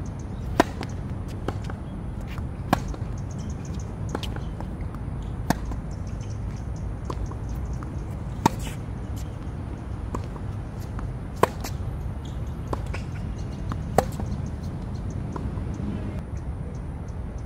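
Tennis rally: sharp pops of rackets striking the ball, a loud hit every two to three seconds starting with a serve, with fainter hits and ball bounces from the far end between them. A steady low rumble runs underneath.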